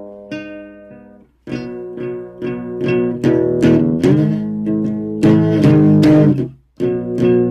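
Guitar music: a few single plucked notes, a brief pause, then louder strummed chords that stop for a moment near the end and start again.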